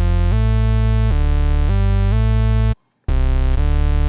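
Serum software-synth bass patch: a dirty saw wave layered with a sub oscillator and noise, played as a mono line with glide always on. Each note slides into the next. It stops briefly near three seconds, then one more note sounds.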